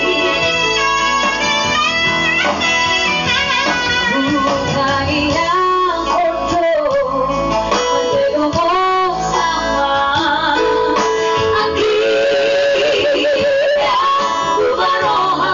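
Women's vocal trio singing into microphones over instrumental accompaniment.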